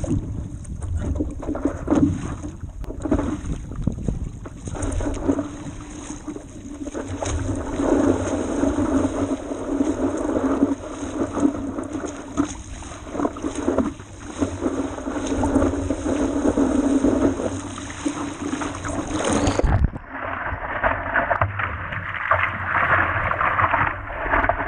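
Water rushing and slapping against the nose of a stand-up paddleboard running through choppy sea, with splashes from paddle strokes and wind buffeting the microphone.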